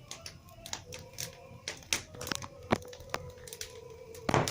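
Embers crackling and popping irregularly under cod grilling in a hinged grill basket, with oil and juices dripping onto the coals. The sharpest pop comes near the end.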